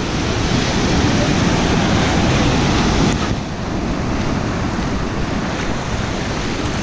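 Ocean surf breaking and washing up the beach in a steady rush, with wind buffeting the microphone; the noise eases a little about three seconds in.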